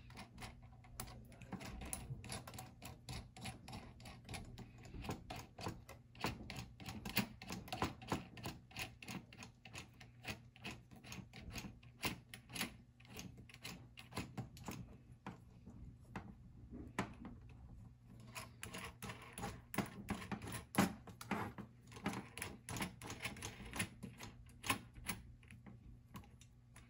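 Small metal clicks and ticks of a nut being spun by hand along a threaded rod, several a second and irregular, as the hardware on a metal-frame animatronic eye mechanism is tightened.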